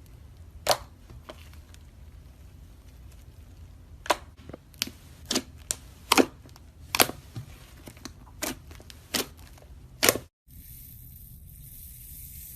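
Slime being squeezed and poked, giving a string of sharp pops: one early, then about ten in quick, uneven succession. Near the end the sound cuts to a steady hiss.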